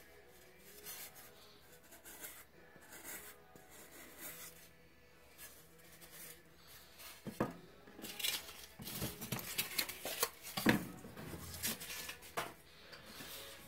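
Utility knife cutting and trimming pink foam board, with soft scraping and rubbing of the foam. In the second half come a few sharp knocks as the knife and the cut pieces are set down on the cutting mat.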